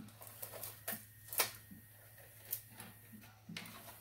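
A few light, scattered clicks and taps from hands handling an opened VCR deck, over a low steady hum.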